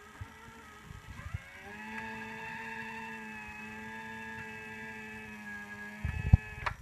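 Polymaker Polysher's opening mechanism motor whining as it slowly lifts the platform, struggling to open. The whine starts about a second in, rises briefly in pitch and then holds a steady tone, and stops near the end, followed by a few knocks.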